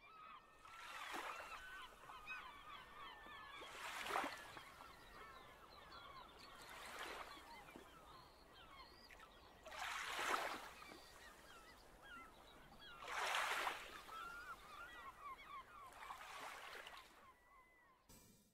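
A faint flock of birds calling, with many short goose-like honks and chatter overlapping. A brief rushing swell rises and fades about every three seconds.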